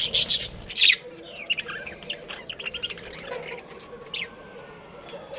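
Budgerigars chirping and chattering, with a loud cluster of calls in the first second, then a run of quicker, softer chirps and a falling whistle.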